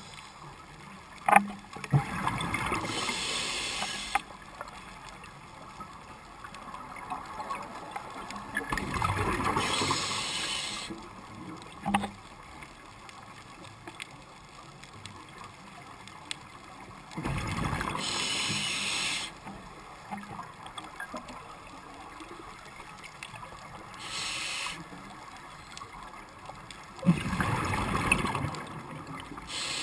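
Exhaled breath bubbling out of a scuba regulator underwater: five separate bursts of bubbling, each one to three seconds long, over a low hiss. Two sharp clicks fall between them.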